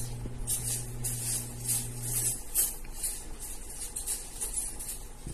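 Felt-tip marker drawn across paper in a run of short, scratchy strokes, each a brief dry hiss. A low steady hum sits under the first two seconds and then stops.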